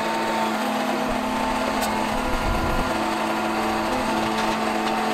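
Concrete pump truck's engine and hydraulics running steadily, with a held hum, as its boom unfolds and rises.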